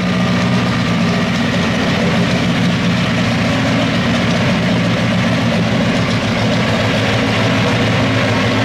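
Vintage racing car's large inline engine idling steadily at an even speed, with no revving.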